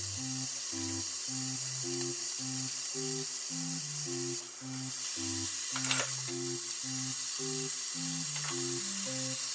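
Background music, a plodding line of low notes about three a second, over a steady sizzling hiss from broccoli frying in a small pan. The hiss dips briefly near the middle, and a few light clicks follow.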